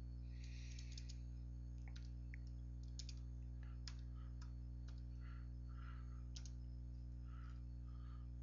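Computer keyboard keys and mouse buttons clicking at irregular intervals as axis values are typed in. Underneath runs a steady low electrical hum.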